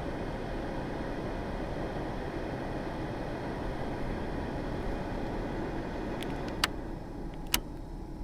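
A 1990 Volvo 240 making a steady rushing noise that dies down about seven seconds in. A few sharp clicks come near the end, followed by a faint steady tone.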